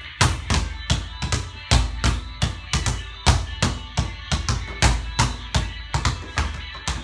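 Basketball bouncing hard on a court floor in a fast dribbling drill, about three bounces a second, each a sharp thump. Background music plays under it.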